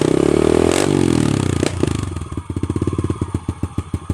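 Yamaha TT-R110 pit bike's single-cylinder four-stroke engine running through a new FMF aftermarket exhaust while warming up: a quick rev that climbs and falls back within about a second and a half, then settles back to an even idle.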